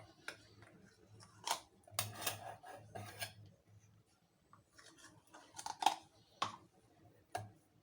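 Kitchen utensil scraping and clinking against a jar and a small saucepan as petroleum jelly is scooped into the pot, in several short, uneven clatters.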